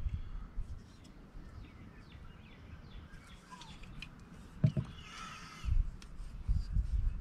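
Outdoor ambience of birds chirping, with a louder harsh call about five seconds in. Two sharp clicks come just before it, over a low rumble.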